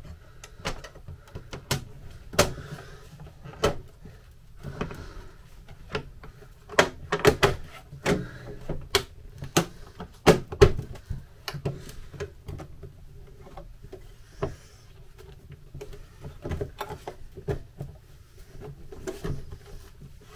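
Irregular clicks, taps and knocks as an MGB heater box's cover and parts are handled and pressed into place by hand. The knocks come thickest and loudest from about seven to eleven seconds in.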